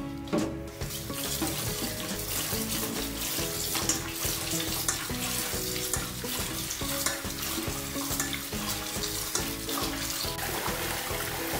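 Tap water running into a stainless steel bowl while hands squeeze and rub flour dough in the milky starch water, washing out the starch to leave gluten. Background music plays throughout.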